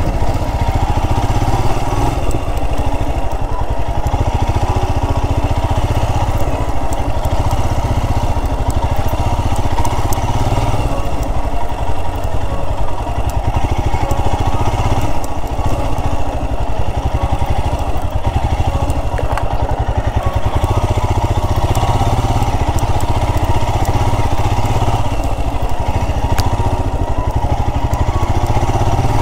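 Royal Enfield Himalayan's 411 cc single-cylinder engine running steadily as the motorcycle is ridden along a dirt track.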